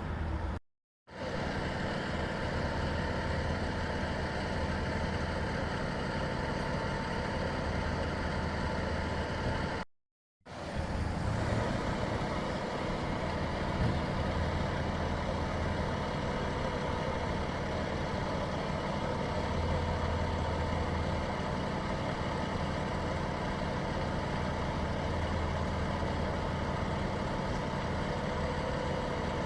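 A vehicle engine idling with a steady hum, cutting to silence briefly twice, about a second in and about ten seconds in.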